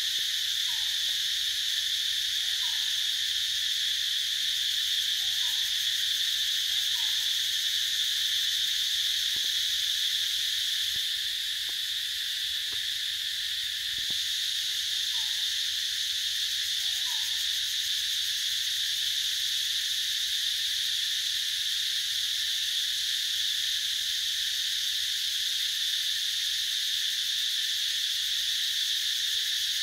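Steady, high-pitched drone of a forest insect chorus. Against it, an unseen animal gives a few short, falling call notes in the first half, some in quick pairs.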